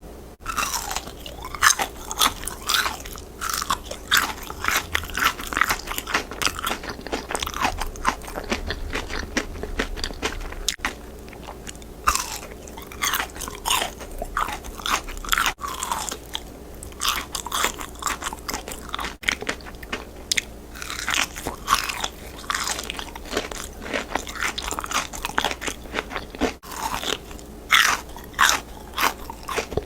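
Someone biting into and chewing crispy fried chicken: a continuous run of irregular, sharp crunches.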